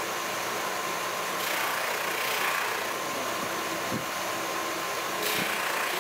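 Motor-driven cloth buffing wheel running steadily, with a wooden Japanese knife handle pressed against it to polish it by friction heat. The hiss swells briefly about a second and a half in and again near the end.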